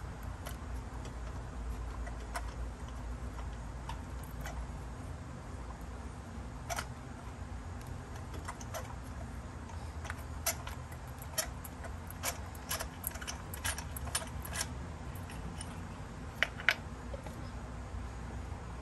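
Irregular light clicks and ticks of a spark-plug socket and extension being turned by hand to back a loosened spark plug out, coming thicker in the second half, over a steady low hum.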